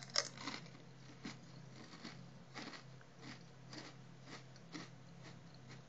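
A Walkers Sensations potato crisp bitten with one sharp crunch just after the start, then chewed in the mouth with short crunches about twice a second.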